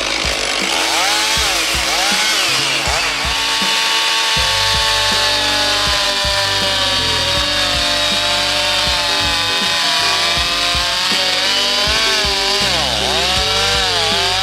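Chainsaw cutting through wood. The engine's pitch repeatedly dips and climbs back as it bogs in the cut and recovers.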